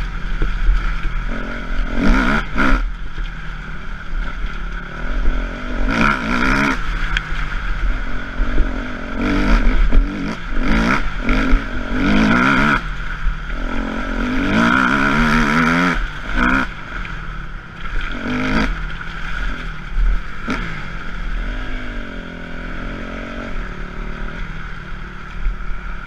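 Motocross bike engine heard on board, revving hard and dropping off again and again as the rider works the throttle over the dirt track. Near the end the revs fall away and the engine runs slower and unevenly.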